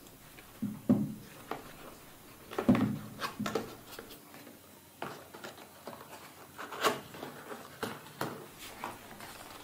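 Cardboard keyboard box being handled and opened by hand: irregular taps, scuffs and short scrapes of cardboard, with a few sharper knocks.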